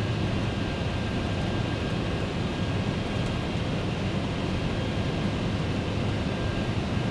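Steady cockpit noise of an MD-11 airliner on final approach: an even rush of air with a low engine hum and a faint steady high tone.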